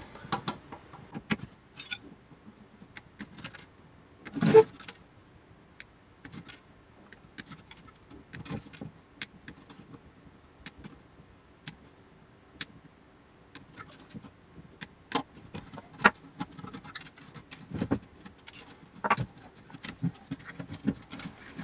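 Irregular sharp clicks, snips and clinks of hand tools working on wires and metal parts of an electronics enclosure, with one louder clatter about four and a half seconds in.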